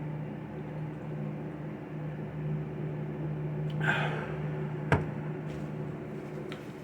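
A steady low electrical hum from a room appliance runs throughout, under quiet eating sounds. About four seconds in there is a short rustle, and about a second later a single sharp click.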